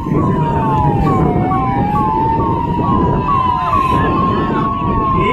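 Emergency sirens sounding over a loud low rumble. One is a slow wail that dips and rises, and over it a second gives quick falling chirps, about two or three a second, which stop about four seconds in.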